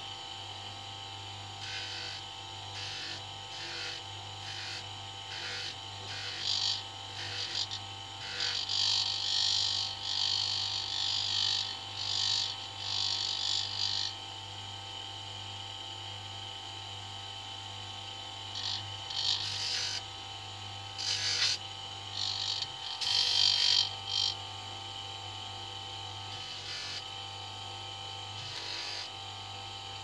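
Electric motor spinning a felt polishing wheel with a steady hum. A small brass nut, loaded with GOI polishing paste, is pressed against the wheel in spells, giving rubbing hiss that is heaviest from about 2 to 14 seconds in and again around 19 to 24 seconds.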